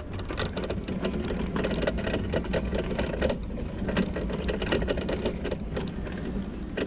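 Electric mobility scooter driving over rough woodland ground, its drive whirring with rapid mechanical clicking and rattling. The rider takes it for something rubbing underneath.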